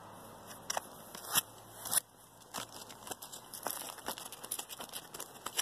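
Irregular light crackles and crunches as gloved fingers press torch-warmed bitumen underlayment down onto the metal skylight flashing and the gritty shingle surface. The louder clicks come between about one and two seconds in.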